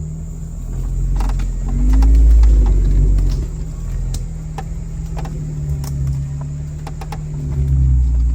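Jeep engine running at low revs while crawling an off-road trail, with a rise in revs about two seconds in and again near the end, over scattered knocks and clunks.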